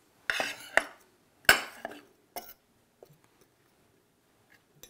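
A metal fork and spoon scraping and clinking against a glass baking dish while stirring pepper into flour. There are three short bursts in the first couple of seconds, then only a few faint taps.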